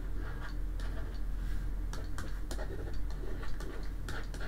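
Irregular light clicks and taps of a stylus writing on a pen tablet, over a steady low hum.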